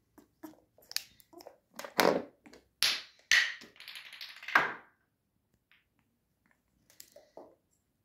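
African grey parrot right at the microphone making a run of sharp clicks and taps, then harsh rasping noises, loudest between about two and five seconds in, with a few faint clicks near the end.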